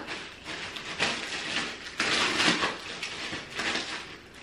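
Clear plastic packaging bag crinkling and rustling in uneven surges as stroller wheels are pulled out of it, loudest about two seconds in.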